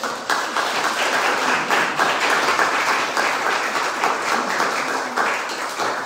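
Audience applauding, with many hands clapping together. It starts suddenly and eases off near the end.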